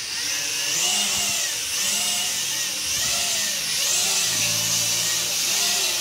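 Small foldable quadcopter's four propeller motors whining loudly in flight, the pitch swelling up and down repeatedly as the throttle is worked.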